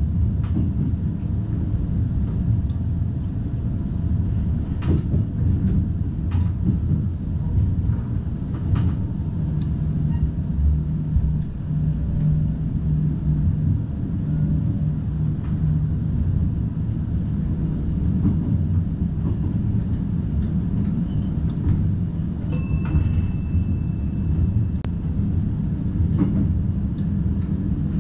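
NS DDZ double-deck intercity train running between stations, heard from the driver's cab: a steady low rumble with occasional sharp clicks from the track. A short high beep sounds about 22 seconds in.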